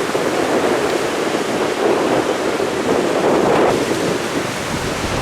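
Strong gusty wind blasting across the microphone: a continuous rushing noise that swells and eases.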